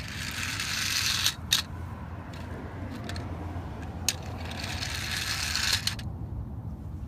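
Small toy rocks and plastic toy trucks rattling and scraping together. It comes in two stretches of a second or two, with a few sharp clicks.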